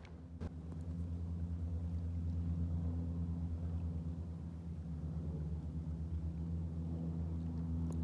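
Low, steady drone of a firefighting water bomber aircraft's engine and propeller in flight.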